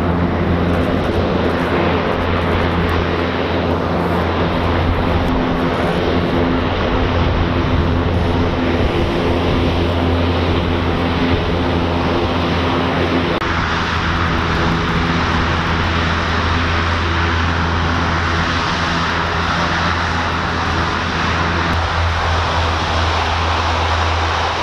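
U.S. Navy LCAC air-cushion landing craft under way, its gas turbines and ducted propellers running at full power in a loud, steady drone with a low hum under a rushing roar of air. The sound shifts abruptly about halfway through, becoming more hissy.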